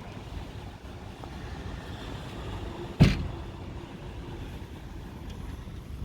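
Strong gusting wind rushing steadily, heavy in the low end. About halfway through, one loud sharp bang.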